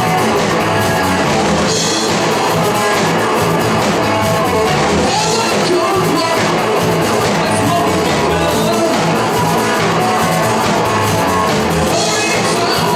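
Live hard rock band playing loudly and steadily: electric guitar, bass and a drum kit with cymbals, with a singer's voice over the top.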